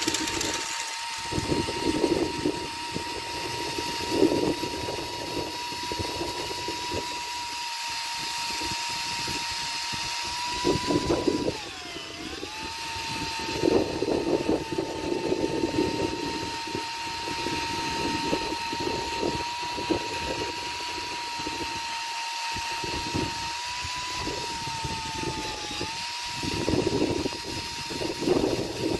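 Power drill spinning a SootEater rotary chimney-sweep rod down the flue: a steady whine that sags in pitch briefly about twelve seconds in and again near the end, with irregular low rumbling bursts over it.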